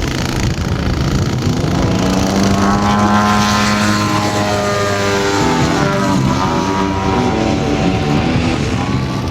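Desert Aircraft DA-170 twin-cylinder two-stroke petrol engine of a large-scale RC model Sukhoi Su-29 in flight, its pitch rising and falling through aerobatic manoeuvres. About six seconds in, the pitch dips sharply and climbs again.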